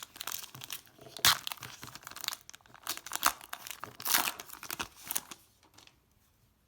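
Wrapper of a Score football card pack being torn open and crinkled, with sharp rips about a second in and again around four seconds; the rustling stops about five and a half seconds in.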